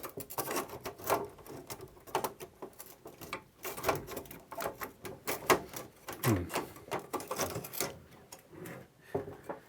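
Irregular small clicks, taps and rattles of hands handling parts of a rack synthesizer that is being taken apart.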